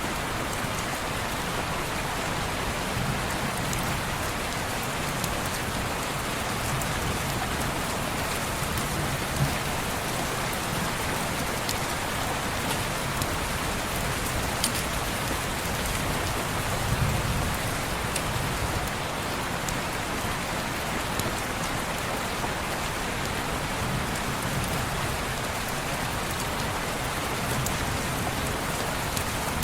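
Steady rain falling on window glass, an even hiss with a few faint ticks of single drops and occasional soft low swells.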